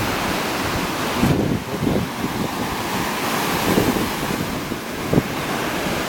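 Sea surf breaking and washing up onto a sandy beach, a steady rushing hiss, with wind buffeting the microphone in low gusty rumbles.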